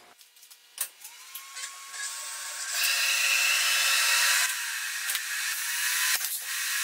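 CNC milling machine running with nothing cutting: a steady high whine starts about a second in, and a strong hiss comes in about three seconds in, with a few light clicks as stock is handled at the spindle.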